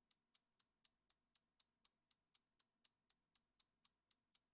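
Clock-style ticking sound effect: faint, even ticks about four a second, a countdown timer running while the quiz question waits for an answer.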